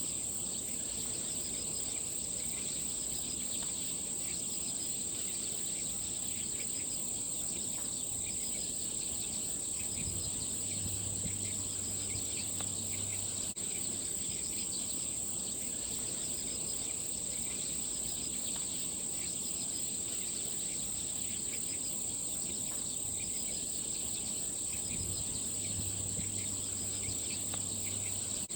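Insects trilling in a continuous chorus: a steady, high-pitched ringing with a fast, even pulsing above it. A faint low hum comes in twice.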